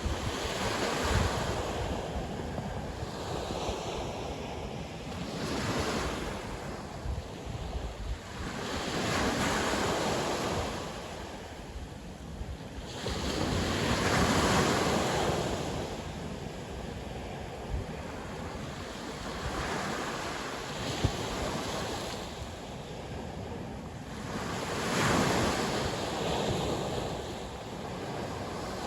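Sea waves breaking and washing up the shore, surging and receding about every five seconds, with wind rumbling on the microphone underneath.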